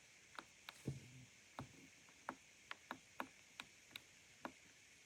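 Keys of an Ajazz AK820 Pro gasket-mounted mechanical keyboard pressed one at a time: about a dozen faint, unevenly spaced clicks.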